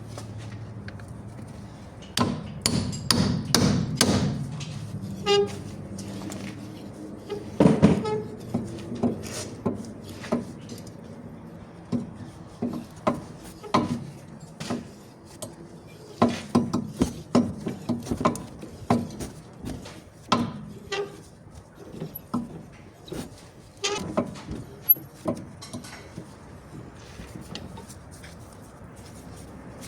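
Irregular metallic knocks and clanks of hand tools working on a car's steering tie-rod end, coming in clusters with short gaps between them.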